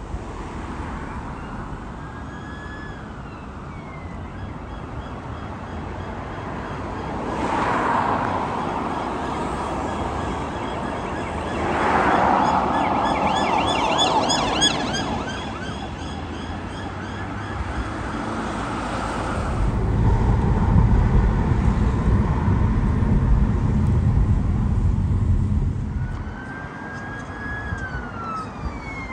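Police sirens wailing as emergency vehicles come up and pass through traffic on a main road, with a rapid pulsing yelp as a blue-lit unmarked Volvo estate goes by about halfway through. A heavy vehicle's low engine rumble passes later on, and a siren rises again near the end.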